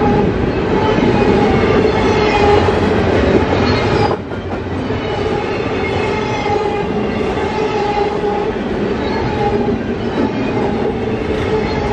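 CSX double-stack intermodal freight cars rolling past on the rails, a steady loud rumble and clatter of wheels with a few steady tones above it. The level drops suddenly about four seconds in and the rolling continues somewhat quieter.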